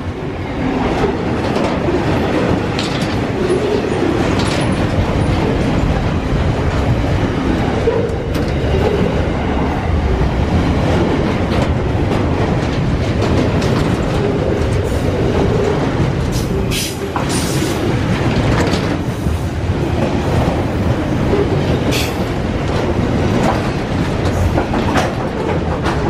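Freight train wagons rolling past at close range: a steady heavy rumble and clatter of steel wheels on the rails, with a few brief sharp metallic sounds now and then.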